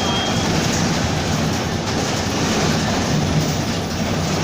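Mercedes-Benz OF-1722M city bus under way, its engine and drivetrain giving a steady low rumble.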